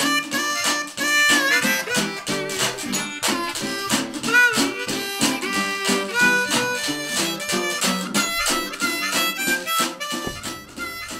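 Background blues song in an instrumental break: a harmonica playing over guitar.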